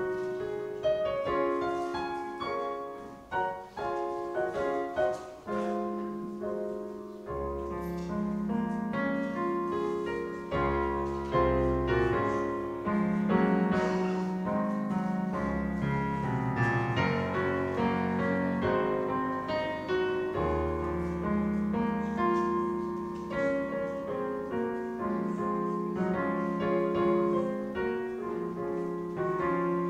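Solo piano playing slow offertory music in a hymn style, in sustained chords, with deep bass notes joining about seven seconds in.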